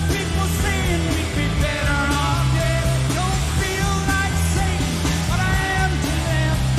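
Live rock band playing loud and full: electric guitars, bass and hard-hit drums with a male lead vocal.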